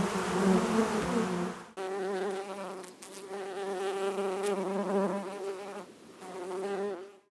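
Honeybees buzzing: a dense hum of many bees that cuts off sharply under two seconds in, followed by the buzz of a bee in flight whose pitch wavers, dropping out briefly twice.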